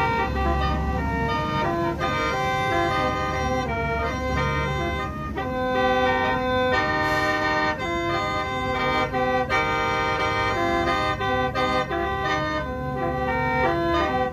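Lao khaen, a bamboo free-reed mouth organ, played continuously: an unbroken reedy drone under a melody of held chords that change quickly and rhythmically.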